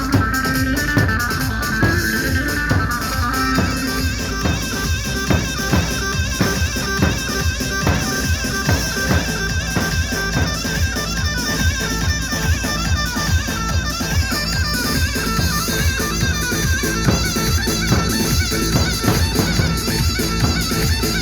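Live wedding band playing instrumental dance music, with no singing: a steady drum-kit beat under a high, reedy melody line.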